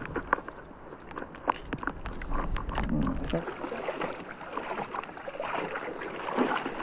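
Water sloshing and lapping around a small fishing boat, with scattered light clicks and taps. A low rumble of wind on the microphone stops about halfway through.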